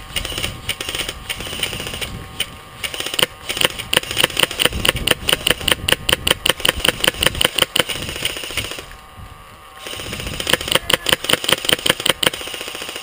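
Airsoft gun firing on full auto: two long bursts of rapid, evenly spaced shots with a short pause between them.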